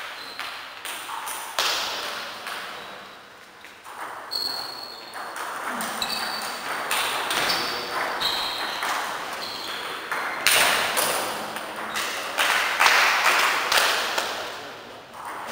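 Table tennis rally: a plastic ball clicking sharply off bats and the table in quick irregular succession, with a few short high squeaks among the hits.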